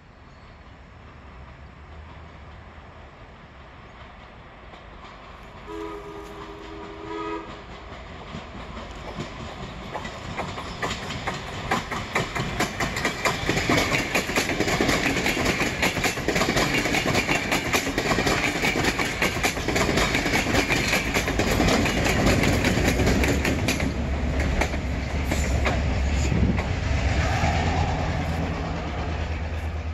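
Passenger train approaching and passing: a short horn blast about six seconds in, then a growing rumble with rapid clickety-clack of the coaches' wheels over the rail joints as the cars roll by, loudest midway.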